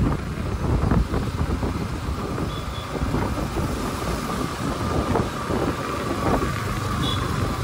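Road traffic noise while moving along a city road, with wind buffeting the microphone and a low, steady rumble of motorcycle and vehicle engines. Two short faint high beeps sound, one a couple of seconds in and one near the end.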